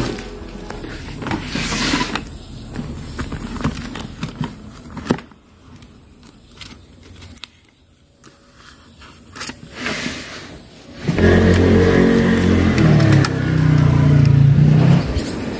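Clicks and rustling from things being handled, then, about eleven seconds in, a motor vehicle engine running loudly and steadily for about four seconds, its pitch stepping up once partway through.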